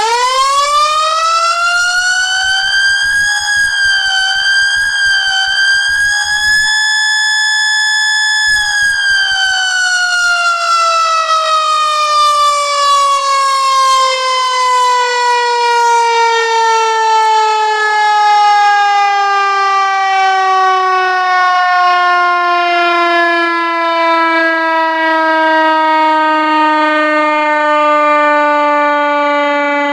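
Whelen electronic siren sounding its simulated mechanical-siren tone: it winds up fast to a high wail within about two seconds, wavers a little, holds steady briefly around eight seconds in, then winds down slowly, its pitch falling for the rest of the time.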